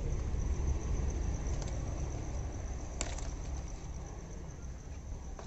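Outdoor ambience: low rumble on the microphone as the phone camera is carried over the ground, with a steady high insect buzz behind it and a couple of faint clicks.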